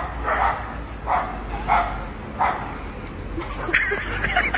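A dog barking four times, about one bark every two thirds of a second, then a higher, wavering whine near the end.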